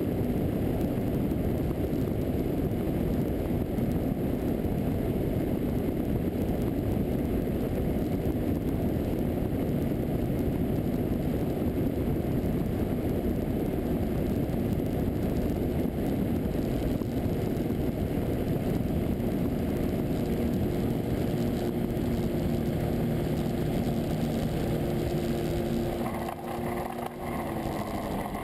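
Rotax 912UL four-cylinder boxer engine of a Kolb Mark III ultralight running throttled back on final approach, under heavy wind rush over the microphone. Near the end the wind noise drops off and the engine pitch slides down as the aircraft comes onto the runway and slows.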